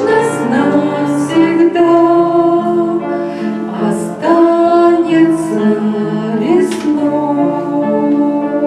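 Music: a woman singing a slow song over instrumental accompaniment, with long held notes.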